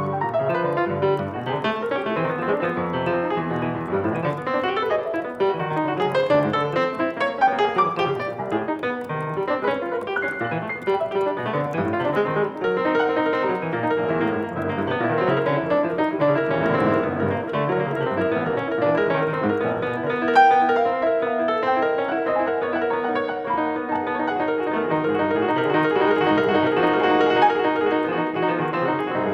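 Piano playing continuously: a dense run of notes across the keyboard with sustained chords, and no break or pause.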